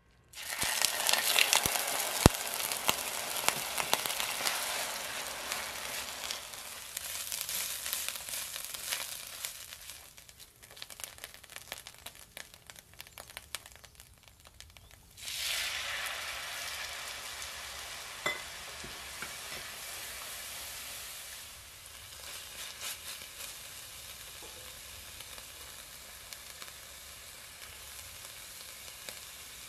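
Grated onion dropped into hot oil in an enamelled cast-iron pot, sizzling loudly at once and then frying on as the sizzle fades, with a few sharp clacks of a utensil. About fifteen seconds in the sizzle jumps up again and then settles to a steadier, lower fry as the browning onion is stirred with a spatula.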